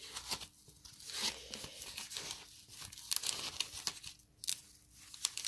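Foam packing sleeve being pulled open by hand and a small plastic bag slid out of it, with irregular crinkling and tearing of the foam and plastic.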